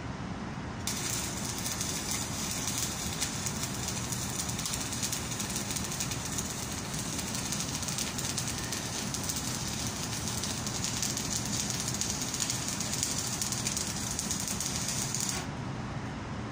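Stick-welding arc burning a 2.6 mm cast iron electrode on a cast iron flange repair, with a steady crackling hiss. It starts about a second in and stops shortly before the end.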